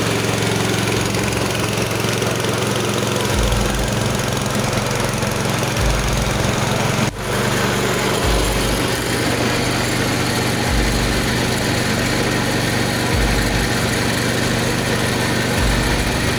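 Engine-driven KD500 WG mini rice mill running steadily under load while milling paddy, with a low pulse repeating every two to two and a half seconds. The sound dips briefly about seven seconds in.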